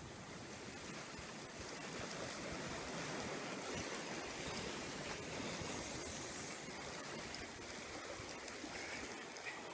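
Steady wash of sea waves, with some wind.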